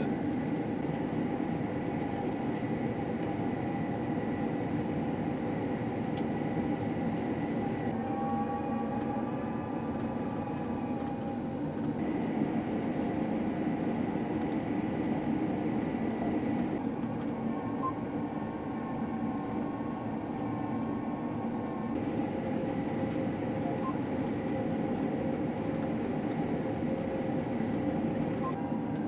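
Combine harvester running steadily while cutting wheat: a constant mechanical drone with a thin, steady high whine over it. The tone shifts abruptly a few times.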